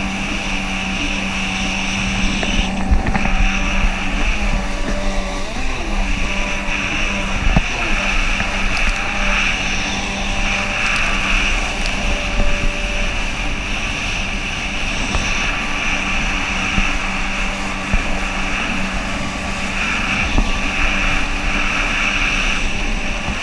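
Kawasaki 650 TS jet ski's two-stroke engine running steadily under way, with water rushing past the hull; the engine note shifts in pitch a few times in the first several seconds as the throttle changes.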